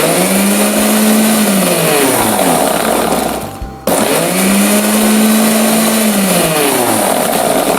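Mixer-grinder (mixie) motor blending egg whites with garlic, salt and sugar in two pulses of about four seconds each. In each pulse the pitch rises as the motor spins up and falls as it winds down, with a brief stop between the two. This is the first blend for homemade mayonnaise.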